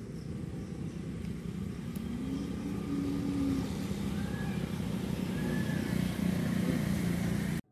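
Outdoor ambience with the rumble of a motor vehicle engine that grows gradually louder, then cuts off suddenly near the end.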